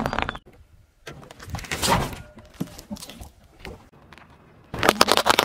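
A car tyre crushing a pile of pastel candy tablets, a crackly crunching that comes again about a second in and thins out to scattered clicks. Near the end a dense run of clicks and cracks starts as the tyre rolls onto a pile of red marbles.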